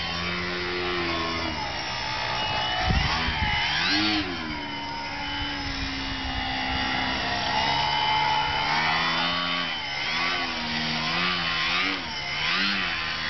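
Electric RC model airplane's motor and propeller whining, the pitch rising and falling again and again with throttle changes as it flies low and tries to hover. There is a brief low thump about three seconds in.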